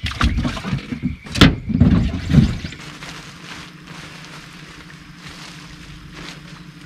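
Knocks and thumps on a bass boat's deck for the first two to three seconds, the loudest a sharp bang about a second and a half in. Then a steady electric hum from the boat's bow-mounted trolling motor.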